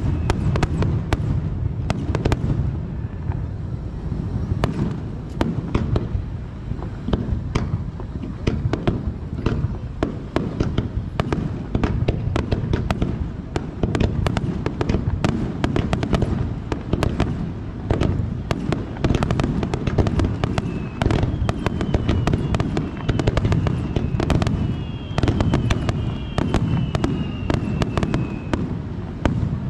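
Fireworks display: a continuous barrage of shell bursts, dense crackling over deep bangs. Several slowly falling whistling tones sound near the start and again in the second half.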